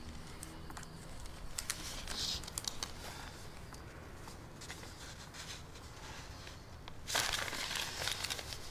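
Rustling with scattered light clicks and knocks, and a louder, denser stretch of rustling near the end.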